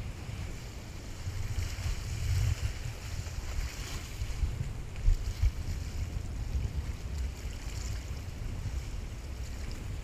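Wind buffeting the microphone in gusts, over the hiss of small waves washing across rocks at the shoreline. A couple of short bumps about five seconds in.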